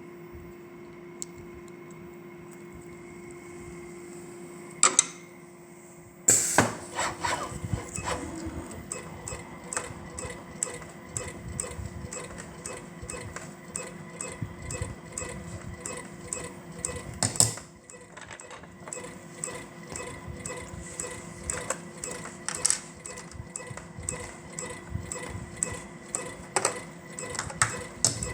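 Machinery with a steady electrical hum, a couple of sharp clicks, then from about six seconds in a busy, irregular run of mechanical clicks and clacks over the hum.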